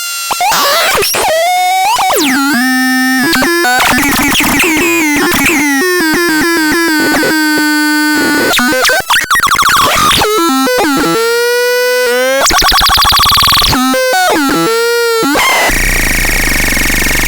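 Synthesizer playing a fast string of electronic tones that glide, wobble and jump in pitch, changing timbre every second or so. Near the end it turns to a noisy hiss with a steady high tone over it.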